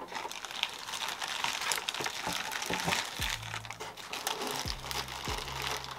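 Packaging crinkling and rustling in steady, irregular crackles as the parts of a boxed AIO CPU liquid cooler are handled and unpacked.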